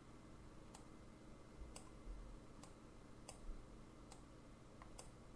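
Faint computer mouse clicks, about six spread unevenly a second or so apart, against near silence.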